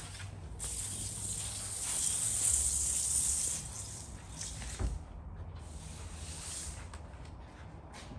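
Spray bottle misting an alcohol and water cleaning mix onto the truck's bedside: a long hiss of about three seconds, a light thump, then a shorter second hiss.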